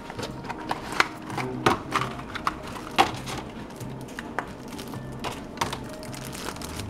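Cardboard box and plastic packaging being opened and handled: an irregular run of sharp clicks and crinkles, loudest about one, one and a half, and three seconds in. Background music plays underneath.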